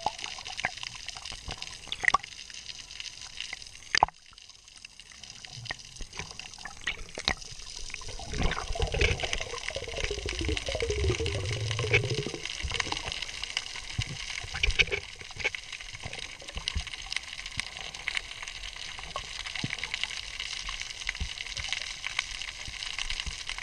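Underwater sound picked up by a camera in its waterproof housing: a steady watery hiss scattered with sharp clicks and crackles. From about eight to thirteen seconds in, a louder stretch of low rumbling and gurgling, water moving around the diver and camera.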